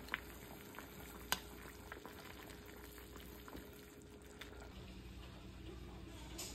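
Pot of seaweed soup boiling on the stove: a faint, steady bubbling with scattered small pops, stirred with a spatula. Two sharp clicks come in the first second and a half.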